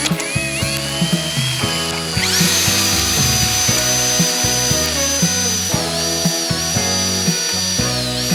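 Background music with a steady beat, over the high whine of a small electric power tool's motor, which speeds up sharply about two seconds in and runs on steadily with two brief dips in pitch.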